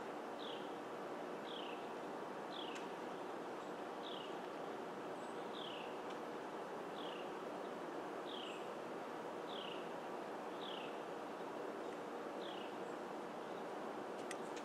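A bird repeating a short, falling whistled note about once a second, over a steady hiss.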